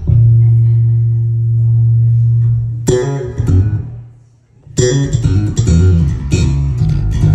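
Lakland Skyline 55-02 five-string electric bass being played: a low note held for nearly three seconds, then a quick flurry of sharp, bright notes, a brief pause a little past the middle, and a busier line of plucked notes.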